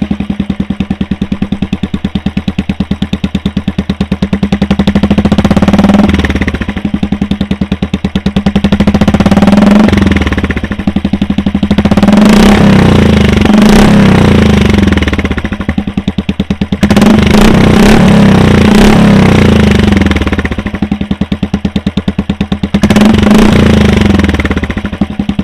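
Royal Enfield Classic 350 BS6's single-cylinder engine breathing through a double-barrel free-flow aftermarket exhaust. It idles with an even, rapid thump and is revved about five times, each rev rising and dropping back to idle. Extremely loud.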